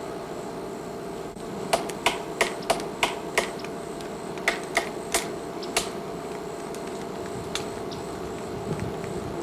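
Woodpecker tapping on wood: sharp single knocks, irregular and about three a second. There is a run of six, a pause, a run of four, and one more knock later, over a steady background hiss.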